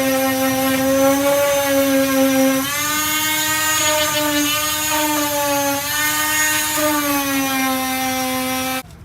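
Power sander with a 240-grit disc running steadily on body filler, a strong hum whose pitch wavers slightly as it works, then cutting off suddenly near the end.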